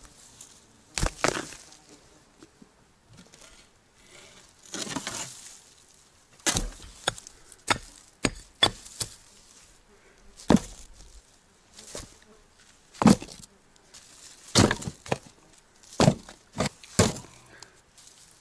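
Hand digging in earth: a dozen or more sharp thuds and knocks at uneven intervals as clods of soil and turf are pulled out and dropped, with insects buzzing faintly behind.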